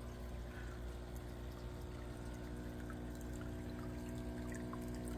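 Water steadily pouring and trickling in an aquaponics system's tank, with a low steady hum beneath it.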